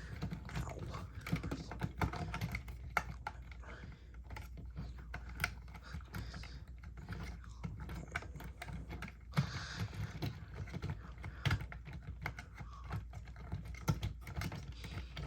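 Irregular small plastic clicks and rattles as Lego pieces and light-kit cables are handled and pushed into place, over a steady low hum.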